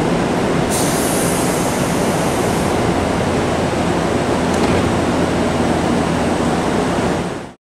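Pneumatic sliding doors of a JR West 201 series electric train closing, with a high air hiss from the door engines for about two seconds, over a steady background rush of the standing train. The sound fades out suddenly near the end.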